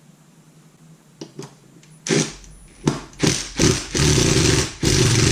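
A tool undoing the bolts of the adapter on a scooter's front wheel: a few light clicks, then short bursts that build into two longer runs near the end.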